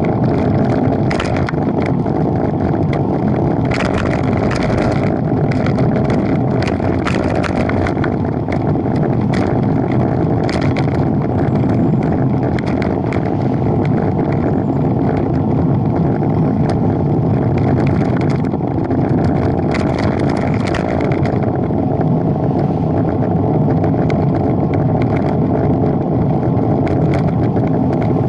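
Wind rushing over the microphone of a camera mounted on a moving bicycle, with tyre and road noise underneath, steady in level. Scattered brief rattles from the bike and mount on the road surface.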